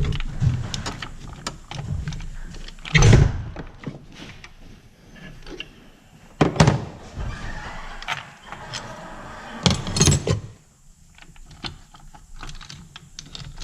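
Metal clunks, knocks and scraping as the camshafts and their bearing caps are prised and lifted off an OM611 diesel cylinder head by hand. Four loud knocks stand out, roughly three seconds apart, with rattling of loose metal parts between.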